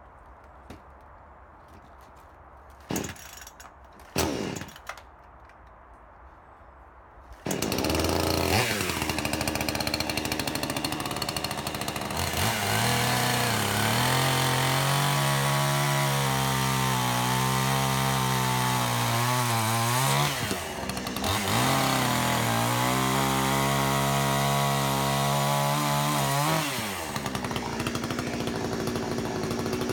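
A couple of brief knocks, then a chainsaw starts about seven seconds in and runs loudly. Its engine pitch rises and falls through two long stretches, with a short drop between them about twenty seconds in, and it settles to a steadier note near the end.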